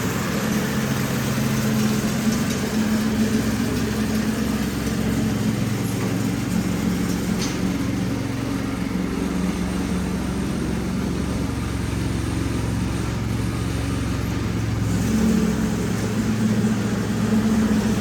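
Lawn mower engine running steadily as the lawn is mowed, its pitch wavering slightly with the load.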